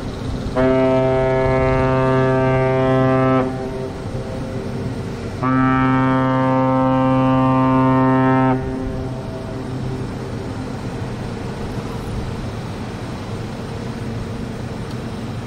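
Freight ship's horn sounding two long, low-pitched blasts of about three seconds each, a few seconds apart: the ship warning fishing boats to get out of its way as it comes upriver.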